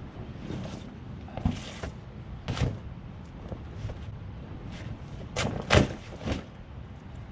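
Kayaking gear being handled and packed up: a series of knocks and thumps with some rustling, the loudest knock about three-quarters of the way through.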